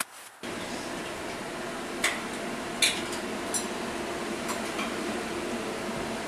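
A steady machine hum with a faint tone in it, starting suddenly about half a second in, with a few light clicks and clinks over it.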